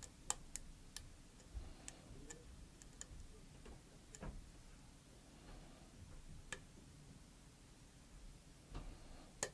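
Faint, irregular clicks of a lock pick working the pins of a pin-tumbler challenge lock.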